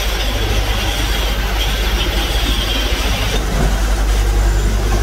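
Foundry sand-mixing machine running with a steady, loud low hum and a constant rattling noise as moulding sand is worked. The sound shifts slightly about three and a half seconds in.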